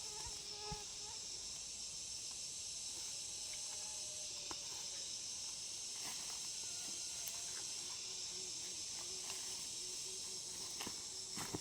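Steady high-pitched chorus of insects droning in the background, with a few scattered light clicks and snaps and a faint wavering low tone later on.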